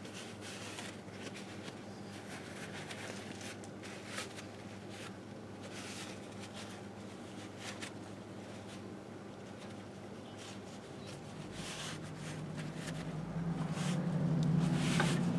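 Cloth rag rubbing over the aluminium crankcase of a 1958 Harley-Davidson Sportster engine in short, irregular wiping strokes, over a steady low hum. A low rumble swells up over the last few seconds.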